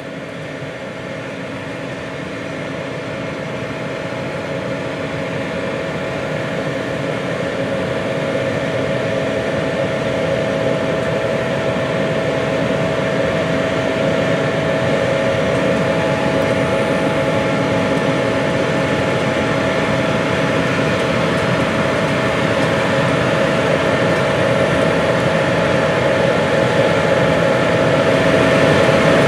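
John Deere S7 800 combine harvesting corn: its 13.6-litre PowerTech engine and threshing machinery running under load with a steady whine, growing louder over the first half and then holding steady.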